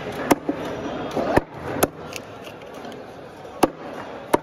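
Knife chopping through Spanish mackerel pieces onto a wooden chopping block: five sharp strikes at uneven spacing.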